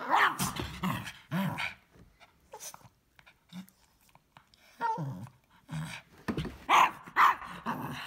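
Cavalier King Charles Spaniel barking and growling at a vacuum cleaner in short bursts: a quick run in the first couple of seconds, then another from about five seconds in.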